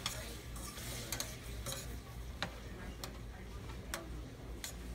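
Bananas sizzling in a sauté pan over a tableside burner while they are stirred, with a metal utensil clicking sharply against the pan about six times.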